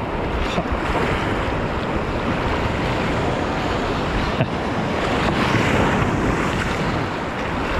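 Sea surf washing in a steady rush, with wind buffeting the microphone.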